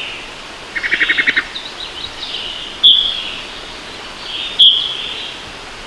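Wood thrush calls: a quick stuttering run of short notes about a second in, then two sharp, loud, high single notes about three and four and a half seconds in.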